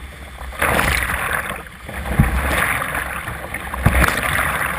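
Kayak paddle strokes and choppy water splashing over the bow, swelling three times about a second and a half apart, with wind buffeting the microphone.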